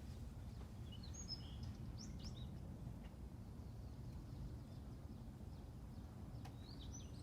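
Faint outdoor background with a steady low rumble, and small birds chirping a few times about one to two and a half seconds in and again near the end.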